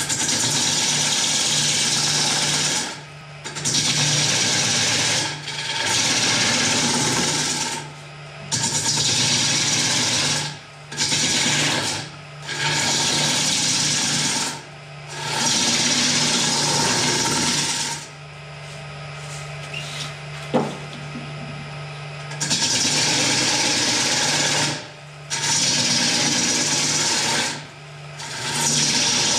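A turning tool cutting a large wooden bowl blank spinning on a wood lathe. The cuts come in a run of passes of about two seconds each with short breaks, over the steady hum of the lathe. A quieter stretch a little past the middle holds a single sharp click.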